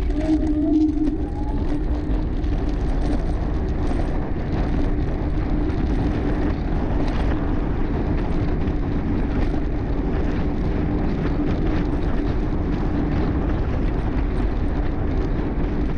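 Wind noise on the microphone and tyre rumble on asphalt while riding a personal electric vehicle, with a steady low hum throughout.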